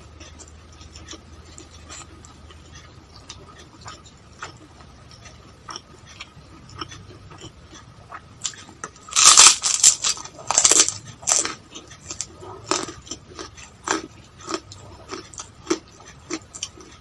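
Close-miked eating: soft mouth clicks, then loud crunching bites for a couple of seconds about nine seconds in, followed by chewing with scattered smaller crunches.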